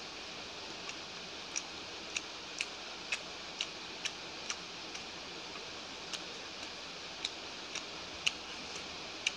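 Eating sounds from a person eating rice by hand: a string of light, sharp clicks, about two a second for a few seconds and then scattered, over a steady hiss.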